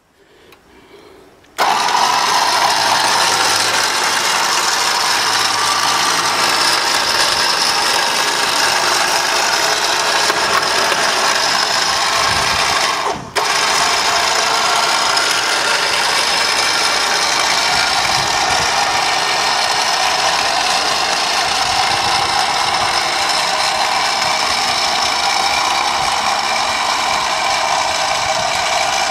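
Warn 12,000 lb 12-volt electric winch powering out cable: a steady motor whine with gear noise that starts about a second and a half in and breaks off for a moment near the middle.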